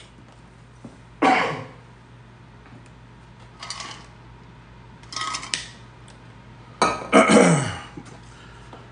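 A man drinking from an insulated tumbler, with soft sipping and swallowing noises in the middle. Two throaty vocal sounds fall in pitch, one about a second in and a louder one near the end, like an exhale or a burp.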